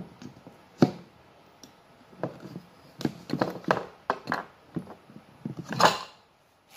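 Knocks and short clatters of PVC pipe fittings being handled and fitted together, with a sharp knock about a second in, a quick run of knocks in the middle and the loudest knock near the end.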